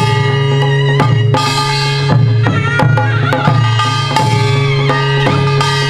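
Korean traditional music for the Jindo drum dance: buk barrel drums struck with sticks in quick, sharp strokes over a sustained melodic line that wavers in pitch.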